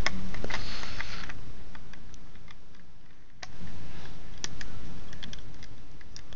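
Plastic LEGO bricks clicking and clattering as they are handled and pressed onto a build: scattered sharp clicks, with a brief rustle about half a second in.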